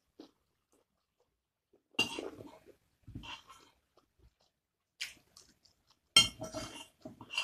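A metal spoon scraping and clinking against a ceramic bowl of fried rice, with chewing between, in a few short separate bursts. The loudest come about two seconds in and again about six seconds in.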